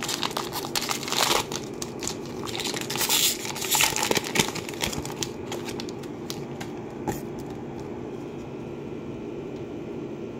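Foil wrapper of a Panini Select football hanger pack being torn open and crinkled, a run of crackling over about the first five seconds. It then dies down to a faint steady hum, with one short click about seven seconds in.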